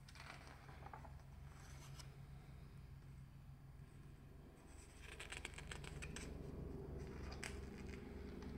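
Glossy catalogue pages turned by hand: soft rustles near the start and a crisp crackling page turn about five seconds in, with a sharp crackle a couple of seconds later, over a low steady hum.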